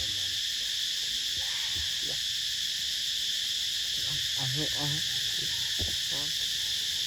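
Steady high-pitched insect chorus that does not let up, with a faint voice briefly near the middle.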